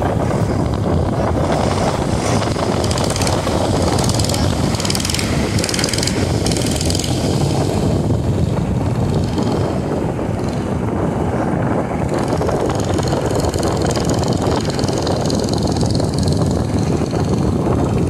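Wind buffeting the microphone over waves breaking on the beach, a steady loud rumbling hiss.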